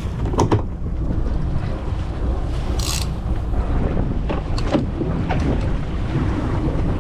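Wind buffeting the microphone over open water, a steady low rumble, with a few brief knocks about half a second in and again around five seconds.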